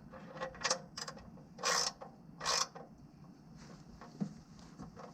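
Ratchet wrench with a 15 mm socket clicking in a few short bursts, tightening the drain plug back into the Ford 5.0L Coyote V8's oil pan by hand.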